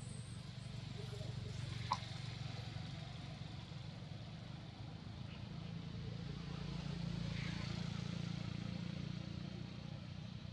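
A low, steady engine rumble, like a passing vehicle, growing louder in the second half, with one sharp click about two seconds in.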